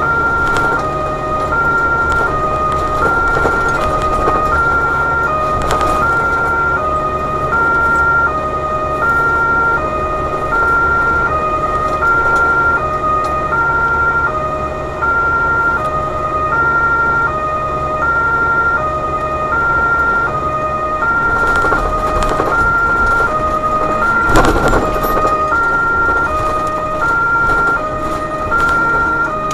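German two-tone emergency siren (Martinshorn) on a BVG overhead-line tower truck, switching steadily between a high and a low tone about every 0.7 seconds. It is heard from inside the cab over the truck's engine and road hum, with a single thump about 24 seconds in.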